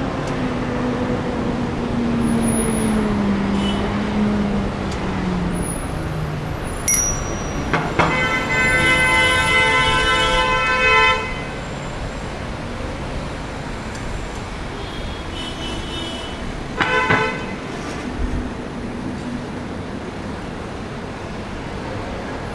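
Road traffic at a busy bus junction: a passing vehicle's engine note drops in pitch over the first few seconds. A vehicle horn then sounds one long honk of about three seconds, and a short second honk comes about seventeen seconds in.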